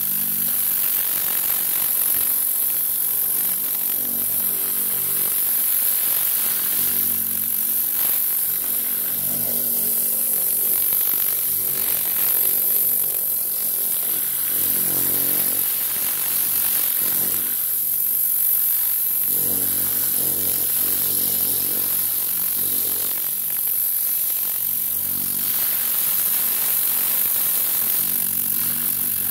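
Tornador Classic air-powered cleaning gun spraying diluted all-purpose cleaner on compressed air at 90 PSI: a loud, continuous high hiss that swells and eases slightly.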